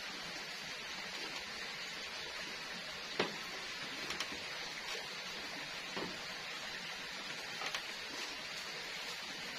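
Wood cooking fire under a pan, with a steady hiss and a few scattered crackling pops.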